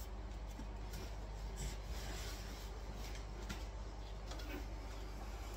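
A pencil drawing on a wall: faint, short scratchy strokes, over a low steady hum.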